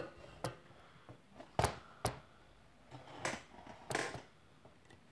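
Handling noise on the recording device as it is set in place: about five scattered knocks and rubs over a faint room background.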